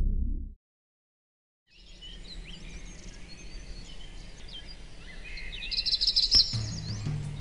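Songbirds chirping and singing outdoors, many short high calls, with a brighter trill about six seconds in. It begins after a low sound fades out and a second of silence; near the end, low steady music notes come in under the birdsong.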